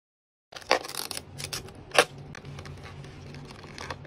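Clicks and crackles of plastic doll packaging being handled by gloved hands, with two sharper clicks, the first just after it starts and the second about two seconds in. It begins after half a second of silence.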